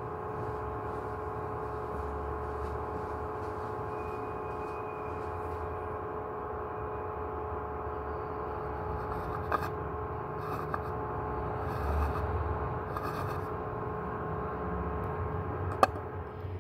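A steady machine hum of several fixed tones over a low rumble, with a few faint clicks and one sharp click near the end.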